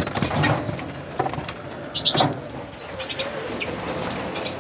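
Small aviary finches, siskins and redpolls, giving short high chirps now and then, mixed with a few sharp rustles and knocks as a hen siskin is caught by hand.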